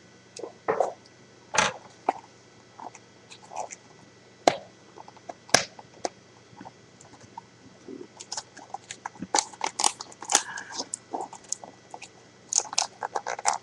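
Trading card pack's plastic wrapper crinkling and tearing as it is worked open by hand, in scattered sharp crackles that come thicker in the second half.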